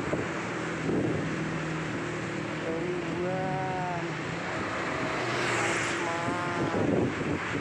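Street traffic with engines running and wind on the microphone. A high call rises and falls in pitch twice, a few seconds apart.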